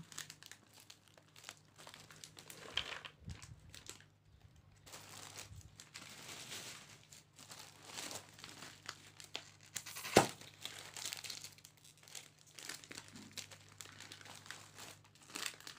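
Plastic snack wrappers and small plastic toy bags crinkling and tearing as they are handled and torn open, in irregular spurts. One sharp snap comes about two-thirds of the way through.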